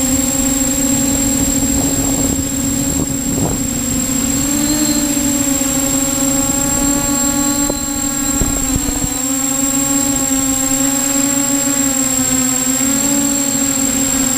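Y6 multirotor's six electric motors and propellers humming steadily, the pitch drifting gently up and down with throttle.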